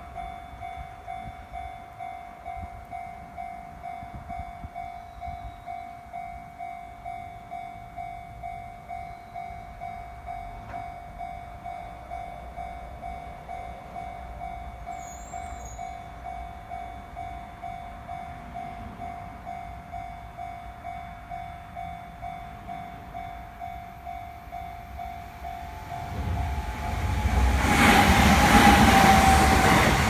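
Japanese railway level-crossing alarm ringing with an evenly repeating bell tone. About 26 seconds in, an electric train comes through the crossing, swelling to the loudest sound and all but drowning the bell near the end.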